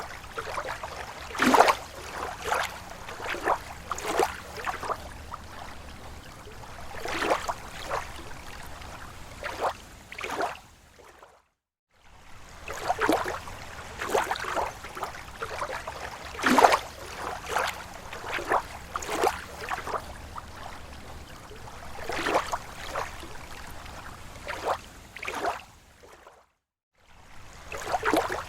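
Small lake waves lapping against the shore: irregular light slaps and splashes, several a second at times, over a soft steady wash. The sound drops out abruptly twice, for about a second each time.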